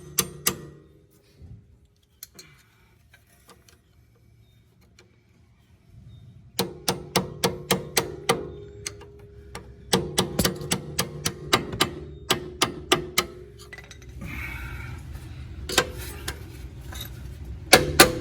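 Hammer tapping a loosened suspension bolt out of its bore: quick runs of sharp metal strikes, about four or five a second, each ringing briefly. The strikes stop for a few seconds early on and resume in two long runs and a short one near the end.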